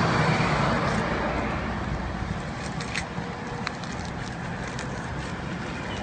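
Rustling and crinkling of paper and plastic wrapping as gloved hands unwrap a package, loudest in the first couple of seconds, with scattered small crackles.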